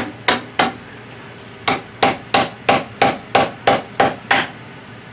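Rubber mallet knocking the frame's tubes down onto their corner connectors: three quick taps, a pause of about a second, then a run of nine even taps at about three a second, seating the pieces tight.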